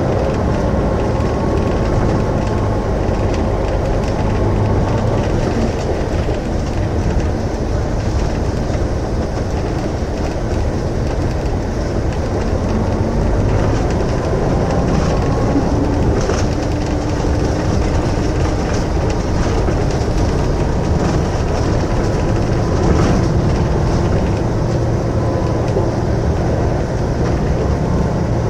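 Mercedes-Benz O405 N2Ü city bus running, heard close to the rear of the bus: a loud, steady rumble whose low engine note swells and eases a few times.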